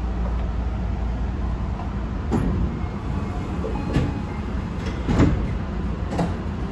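Inside a Tokyu Den-en-toshi Line commuter train about to depart: a steady low rumble from the train, broken by four short knocks and clunks about a second apart, the loudest about five seconds in.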